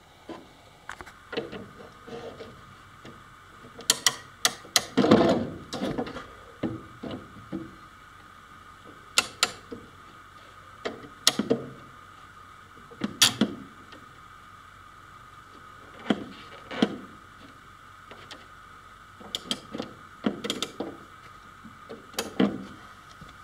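Irregular clicks and clacks of steel bar clamps being handled and adjusted along a twisted plywood panel, busiest about five seconds in, over a faint steady hum.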